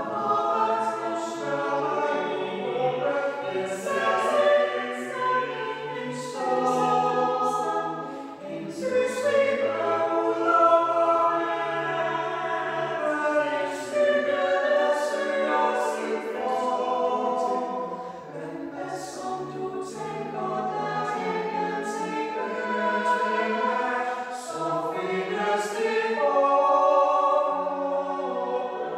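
A small mixed choir of six voices singing a cappella in four parts (soprano, alto, tenor, bass), sustained chords moving together, with a Danish text whose crisp 's' consonants cut through.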